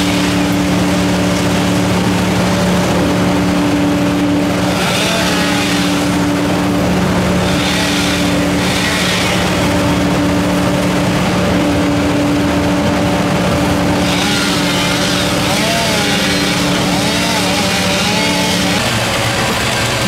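An engine runs steadily at high speed, a constant pitched drone, and its note drops away about nineteen seconds in.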